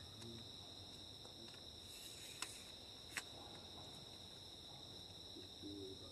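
Faint, steady high-pitched insect chorus droning without a break, with two sharp clicks a little under a second apart near the middle.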